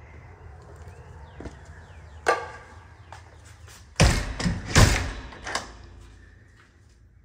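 A door being handled and shut: one sharp knock about two seconds in, then a burst of loud thuds and rattles a little after four seconds.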